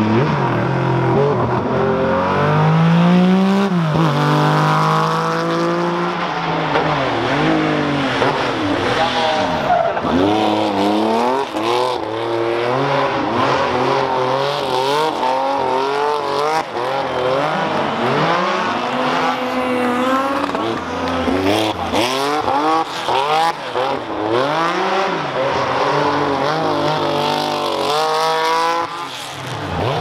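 Porsche 911 SC rally car's air-cooled flat-six, revved hard again and again, its pitch climbing and falling through gear changes and throttle lifts. At times there is tyre squeal as the car slides.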